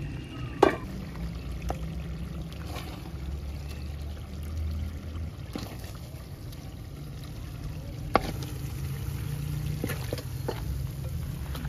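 Cookware clatter as chicken curry is served from an aluminium karahi: the pot lid clanks sharply just after it is lifted, then a wooden spoon scoops and taps in the pot and bowl, with a second sharp knock later on. A steady low rumble runs underneath.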